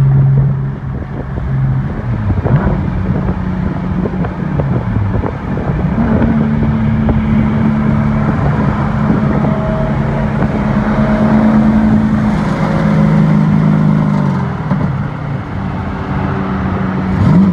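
Turbocharged Infiniti G37's V6 heard from inside the cabin at highway speed, a steady drone whose pitch drops and rises a few times with throttle and gear changes, climbing again near the end.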